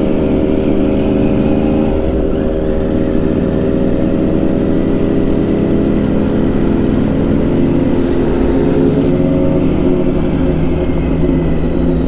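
Motorcycle engine running steadily under way, its pitch shifting slightly about two seconds in and again around eight seconds, over a constant low rumble of road noise.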